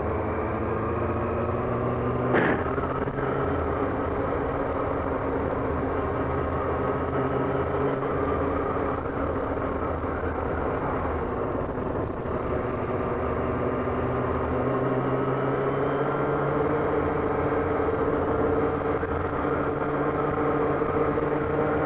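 Yamaha R6's inline-four engine running at a steady cruise, its note drifting slowly and rising a little past the middle, under wind noise on a helmet-mounted mic. One short sharp noise about two and a half seconds in.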